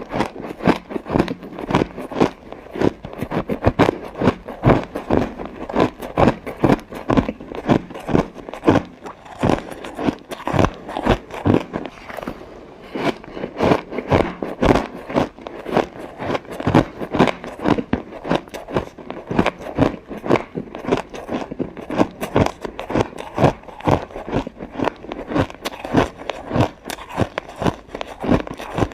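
Ice being bitten and crunched between the teeth, close up: a fast, unbroken run of sharp crunches, several a second, easing off briefly about halfway through.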